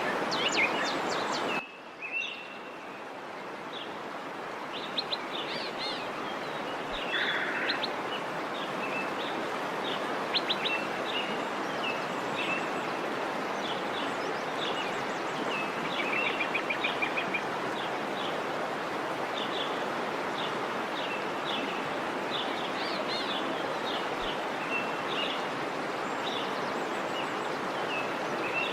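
Steady rushing of a waterfall with many small birds chirping over it. About two seconds in, the water sound drops off abruptly, then swells back up over the next few seconds.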